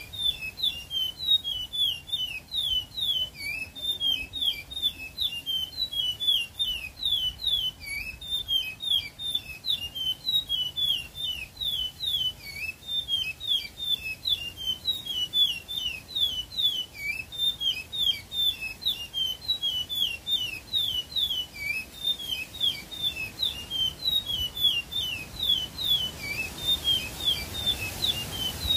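Caged songbird singing a long, unbroken song of rapid high sliding notes, several a second, mostly quick downward slurs.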